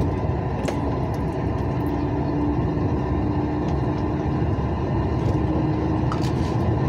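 Steady engine and road rumble heard from inside a moving vehicle's cab on a wet highway, with a faint steady hum under it.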